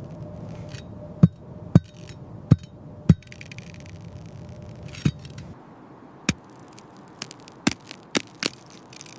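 A series of about ten sharp cracks or clicks at irregular intervals, the first four the loudest, over a low background rumble that cuts out about halfway through.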